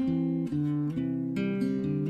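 Music: acoustic guitar strumming chords, with the chord changing about half a second in and again near the end.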